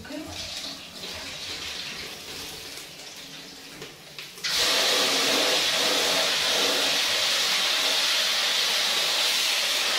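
Kitchen tap running water over rice being washed. It is quieter for the first few seconds, then turns suddenly to a strong, steady flow about four and a half seconds in.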